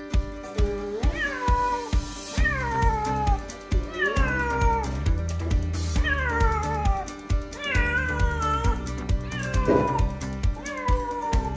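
A cat meowing over and over while being bathed, about seven calls that each slide down in pitch, roughly one and a half seconds apart. Background music with a steady beat plays underneath.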